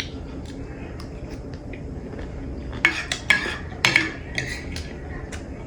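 A handful of sharp clinks of an eating utensil against a dish, clustered in the middle of the stretch, over a faint steady background hiss.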